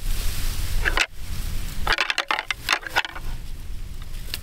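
Antler rattling: clicking, grinding clashes in clusters, densest from about two to three seconds in, imitating two bucks sparring to draw in a rutting buck. Wind rumbles on the microphone in the first second.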